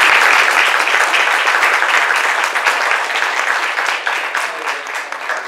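Audience applauding: dense clapping that starts strong and gradually thins and fades toward the end.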